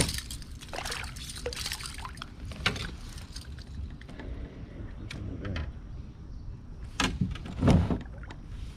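Water lapping and sloshing around a fishing kayak, with small scattered knocks from handling and two louder splashy thumps about a second apart near the end.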